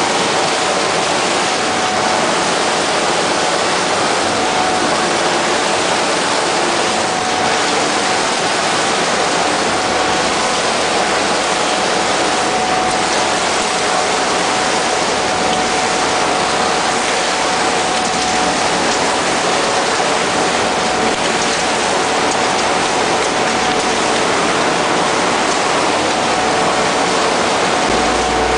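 Putzmeister SPM 4210 shotcrete sprayer at work: a steady, loud rushing hiss of concrete and compressed air blasting from the nozzle onto rock, with a thin steady whine running through it.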